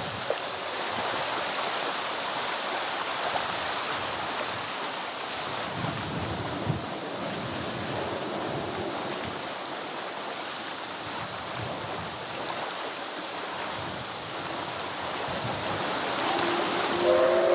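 Steady rush of strong wind and choppy water. Near the end the steam whistle of the C61 20 Hudson locomotive starts to sound, a chord of several steady tones growing louder.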